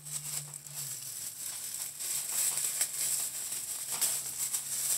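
Thin clear plastic disposable gloves crinkling and rustling as they are pulled on and worked over the hands, a dense run of small crackles.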